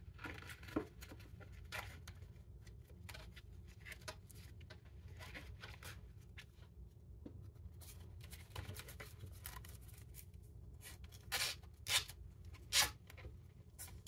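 Faint handling of nylon webbing straps against a plastic knife sheath as the straps are threaded through its loops: small clicks and rustles, then three short rasps of strap pulled through, under a second apart, near the end.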